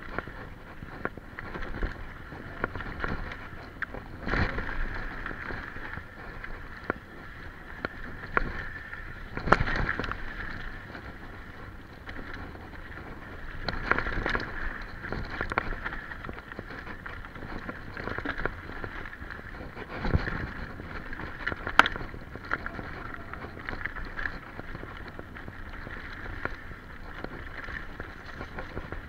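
Mountain bike clattering down a rough dirt singletrack: the frame, chain and fork rattle and knock over bumps and roots above a steady rush of tyres on dirt, with a few sharp, loud knocks, the strongest near the middle and about three-quarters of the way through.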